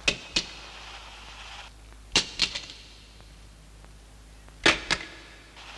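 Sharp clicks in three pairs about two and a half seconds apart, over a low steady hum.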